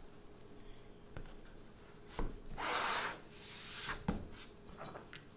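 A laminated plywood brace being handled on a plywood panel: wood knocks on wood about two seconds in and again just after four seconds, with a scraping rub of wood sliding over wood between the knocks.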